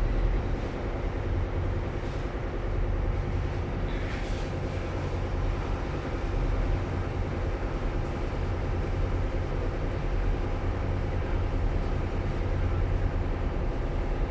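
Marine diesel engine running steadily: a low, even drone.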